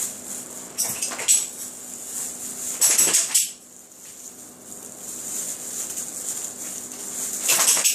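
Three short bursts of hissy rattling and clattering: about a second in, around three seconds in, and near the end.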